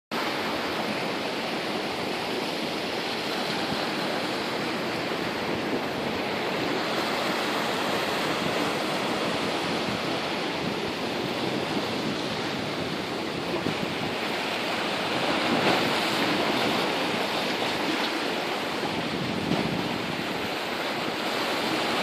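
Sea waves breaking and washing among rocks at the shoreline. It is a steady rush of surf that grows a little louder about two-thirds of the way through.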